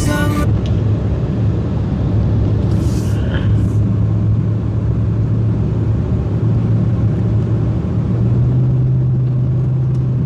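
Car engine and tyre noise heard from inside the cabin while driving, a steady low hum whose pitch steps up slightly about eight seconds in. Music cuts off just at the start.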